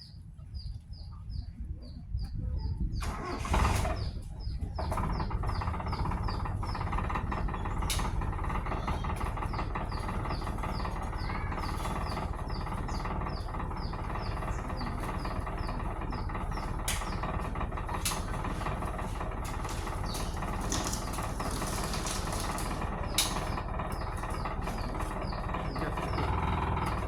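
Original 2A 1.3-litre four-cylinder engine of a 1984 Toyota Corolla GL starting: it catches about three and a half seconds in with a short rev, then settles into a steady idle.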